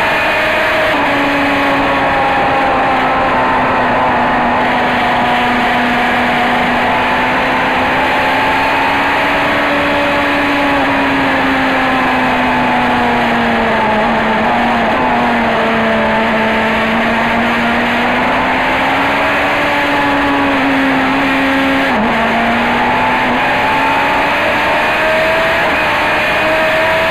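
Racing car engine heard from inside the cockpit, held at high revs with gentle rises and falls through the bends and a brief dip late on, under steady wind and tyre noise.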